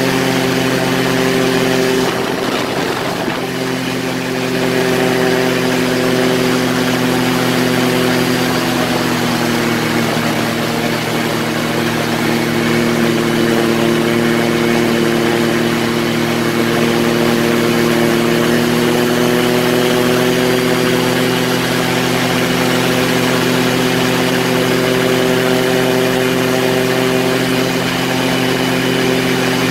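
Quicksilver ultralight's engine and pusher propeller running steadily in cruise flight, heard from the open seat. The sound is briefly muffled about two seconds in, and the engine note drops slightly about nine seconds in.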